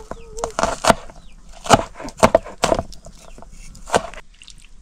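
Sharp chopping strikes of a blade into wood, about six irregular blows in under five seconds.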